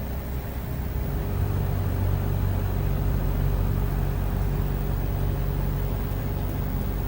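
The propeller fan of an air-conditioner outdoor unit is running, making a steady rush of airflow with a low hum and a faint steady tone above it. The low hum grows louder about a second in, then holds steady.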